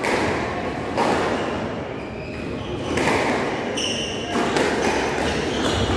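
Squash rally: the ball thuds off rackets and walls, and shoes squeak on the wooden court floor, over steady hall noise.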